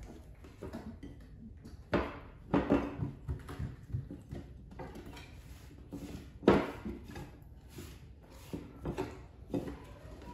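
Scattered knocks and clatters on a wooden table as a plate of sweet potatoes is handled and a baby monkey climbs over it to eat, with two sharper knocks, about two seconds in and about six and a half seconds in.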